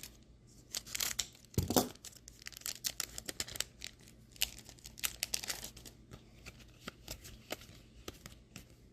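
Foil Pokémon booster pack wrappers crinkling and tearing as packs are opened and handled: an irregular run of sharp crackles, with a louder knock a little under two seconds in.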